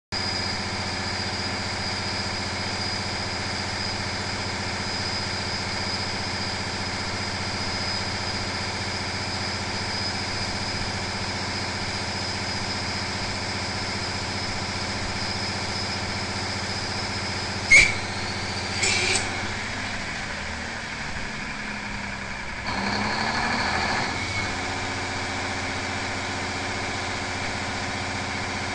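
Big Cam Cummins inline-six diesel running steadily under load, with a high turbo whine over the engine note. About two-thirds of the way in a sharp crack, then a second short rattle, mark the turbocharger failing from oil contamination. The whine drops out, the engine note sags, a louder rough noise with a sliding pitch lasts about a second and a half, and then steady running resumes.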